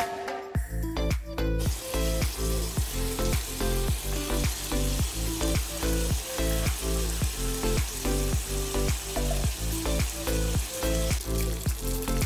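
Bacon rashers sizzling as they fry in a nonstick frying pan, the sizzle coming in about a second and a half in. Background music with a steady beat plays throughout.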